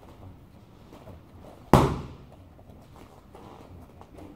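A single punch from a boxing glove smacking into a focus mitt, one sharp crack with a short echo after it.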